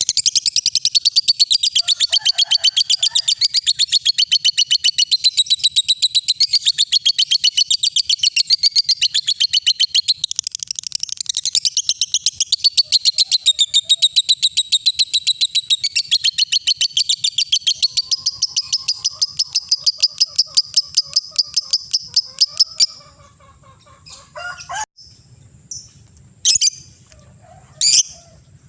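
Lovebird singing 'ngekek': a long, rapid, unbroken chattering trill that stops about 23 seconds in, followed by a few short, sharp chirps.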